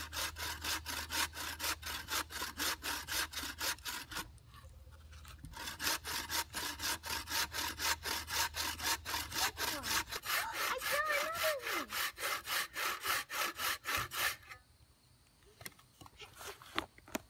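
Hand buck saw, its blade set in a homemade wooden frame, cutting through a sassafras log in quick, even push-and-pull strokes, about three a second. The sawing stops about four seconds in, starts again a second and a half later, and ends near the close with a few light knocks.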